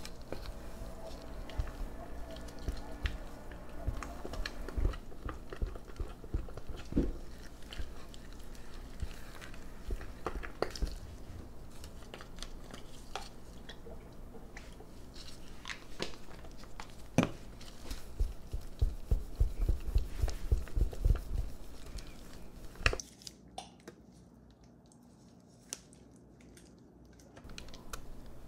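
Silicone spatula stirring thick, sticky brownie batter in a stainless steel bowl: wet squelching strokes with taps and scrapes against the bowl. About two-thirds through the strokes come fast and close together, then the sound drops away and goes quieter near the end.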